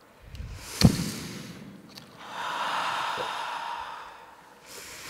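Two breathy whooshing swells of noise, the first with a sharp hit near its peak about a second in, like the sound effects of an animated logo intro.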